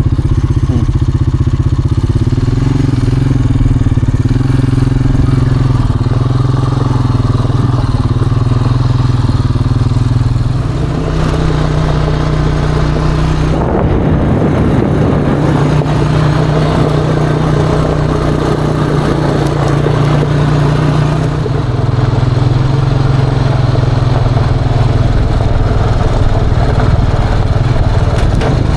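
ATV engine running steadily under way, with the engine note dropping about eleven seconds in and a brief rougher stretch a few seconds later.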